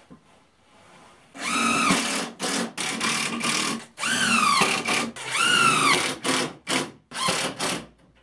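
Drill-driver driving screws through an OSB sheet into a timber frame, in about ten short runs starting about a second and a half in. The motor whine rises and then sags as each screw pulls in.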